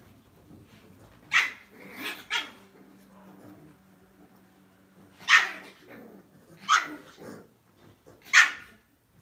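Small Lhasa Apso dogs barking in play: about six short, sharp barks, three close together in the first couple of seconds, then one every second and a half or so.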